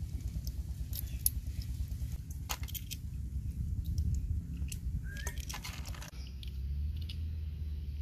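Blood cockle shells clicking and scraping against each other as they are pried open by hand, a few sharp clicks scattered over a steady low rumble.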